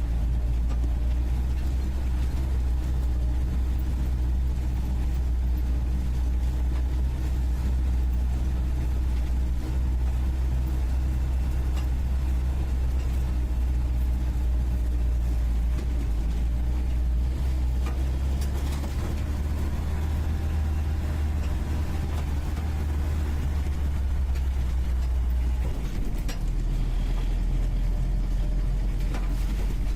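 A UAZ 469B's engine pulls steadily while driving, heard from inside the cabin at the passenger seat. The engine note rises a little past the middle, then drops about four seconds before the end.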